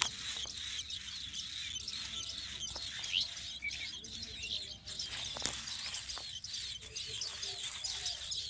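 Common tailorbird nestlings giving many thin, high-pitched begging cheeps in quick, overlapping succession. A single sharp click sounds a little past halfway.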